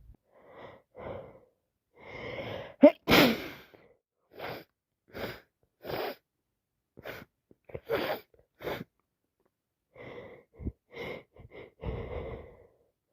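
A woman in a sneezing fit: a drawn-in breath and a loud sneeze about three seconds in, then a run of about half a dozen short, sharp sneezes and breaths. The fit comes with a runny nose that she puts down to either a cold or allergies.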